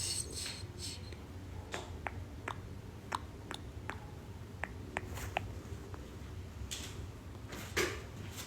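Stomach gurgling: a string of faint short pops and squeaks, irregularly spaced, over a low steady hum, with two louder hissy bursts near the end.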